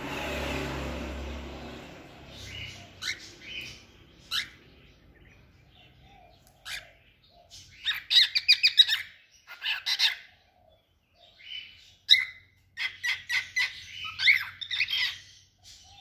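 Cockatiel chirping and chattering in quick strings of short calls, with the densest bursts about eight seconds in and again from about twelve to fifteen seconds. A soft rushing noise fills the first two seconds.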